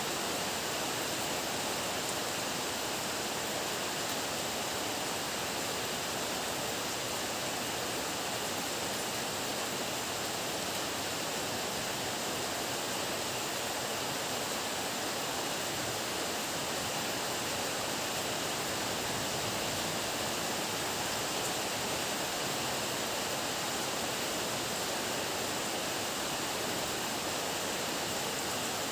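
Heavy rain pouring down, a steady even hiss that does not change.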